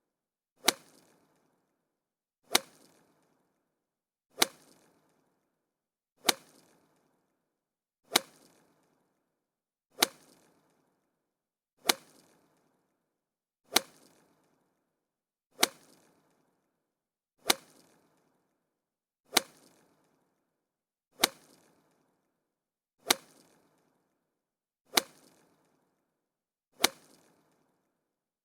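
Golf club striking a golf ball: a sharp, identical crack repeated about every two seconds, fifteen times, each dying away quickly.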